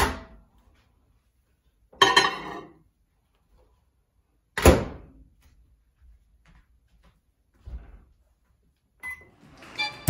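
GE over-the-range microwave oven door: a latch click as it is pulled open, a rattling swing, then a sharp thunk as the door shuts about halfway through, followed by a softer knock and a short keypad beep near the end.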